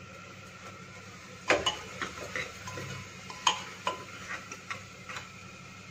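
Long metal spoon stirring masala in an open pressure cooker, knocking and scraping against the pot's metal sides in irregular clinks that start about a second and a half in.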